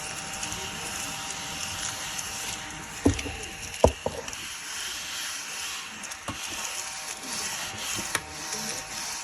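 Battery-powered mini desk vacuum cleaner running with a steady whirring hiss, with small clicks and rattles of debris, and two sharper knocks about three and four seconds in.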